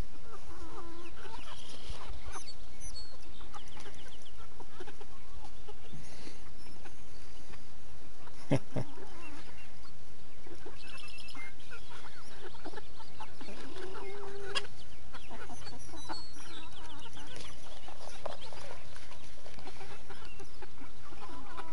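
A small flock of backyard chickens clucking and calling as they forage in grass for scattered black soldier fly larvae.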